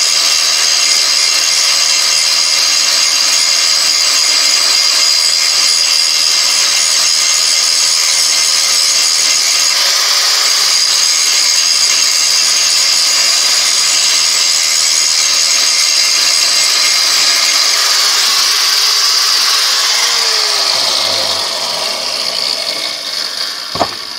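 Angle grinder grinding a high-carbon steel file blank, a steady loud grinding hiss and whine. About twenty seconds in it is switched off and winds down with a falling pitch, and a single sharp knock comes near the end.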